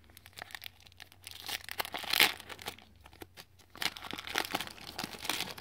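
Foil wrapper of a Dinosaur King trading-card pack crinkling and tearing open by hand, in irregular crackles, loudest about two seconds in and again near the end.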